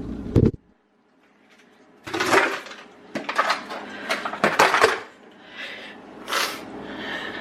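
Utensils clinking and scraping against a noodle bowl or container in a run of sharp knocks, after a single loud thump about half a second in.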